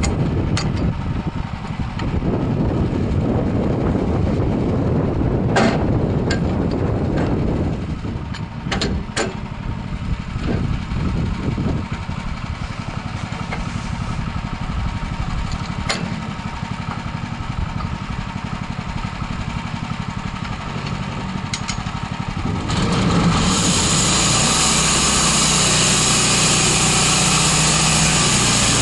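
13 HP Honda engine of a band sawmill running, with scattered sharp clicks and knocks. About 23 seconds in, the sound switches abruptly to a louder, steadier run with a strong hiss over it.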